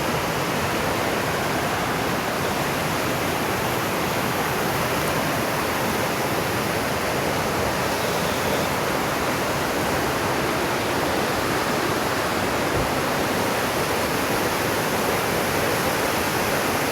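Rushing water of a fast mountain stream or river, a steady, loud, unbroken roar.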